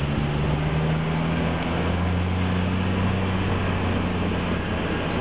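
Engine hum and tyre noise inside the cabin of an automatic car climbing a wet mountain road. The steady engine hum runs over an even rush of tyres on wet asphalt, and a deeper part of the hum grows stronger about two seconds in.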